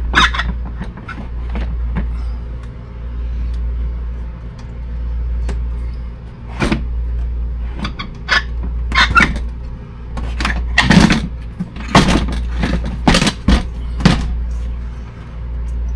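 Knocks, clicks and clatters of a built-in under-cabinet coffee maker being tilted and worked loose from its mounting, coming thicker and louder from about ten seconds in. A steady low hum runs underneath throughout.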